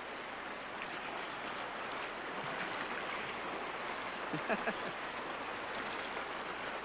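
Fast, riffly river water rushing in a steady wash, with a short voice sound about four and a half seconds in.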